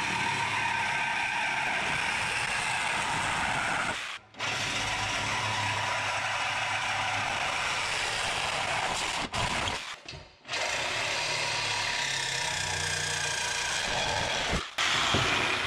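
Corded reciprocating saw cutting through the steel exhaust pipe to take off the factory muffler. It runs in several long stretches, with brief stops about four, ten and fifteen seconds in.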